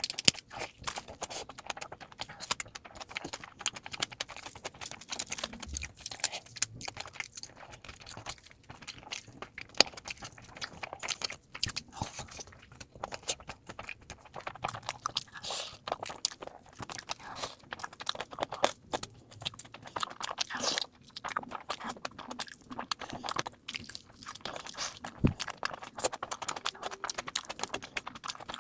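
Close-miked chewing and crunching of food, sped up to double speed: a dense, continuous run of quick crunches, bites and mouth clicks.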